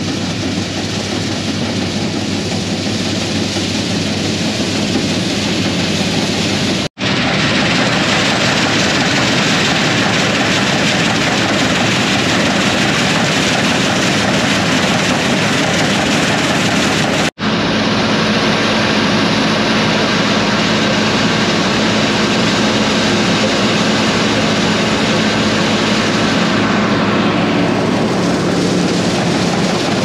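Combine harvester running while cutting beans: a loud, steady mechanical drone that grows louder over the first few seconds as the machine approaches. The sound drops out for an instant twice.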